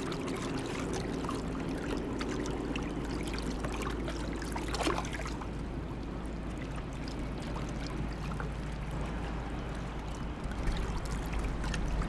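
Water lapping and rippling as a swimming beaver tows a branch through it, with a brief louder splash about five seconds in, over a steady low rumble.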